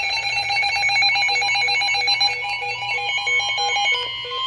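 Alarm tones from weather alert radios going off for a tornado warning: several rapidly pulsing electronic beeps sound together, with new tones joining partway through.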